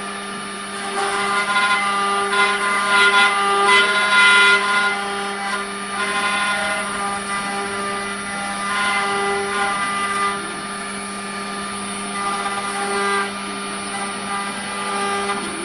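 Multi-spindle CNC wood router running: a steady electric hum with a higher machine whine that comes and goes in spurts as the motors work.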